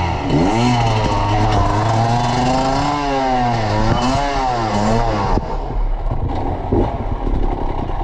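Enduro motorcycle engine revving up and down over and over while the bike, lying on its side in a stream, is worked free. About five seconds in the revving stops, leaving scraping and clattering.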